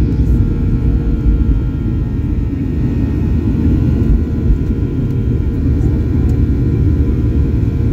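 Jet airliner's engines running at takeoff thrust, heard from inside the cabin: a loud, steady roar with a deep rumble and a few faint high steady tones as the aircraft rotates and lifts off the runway.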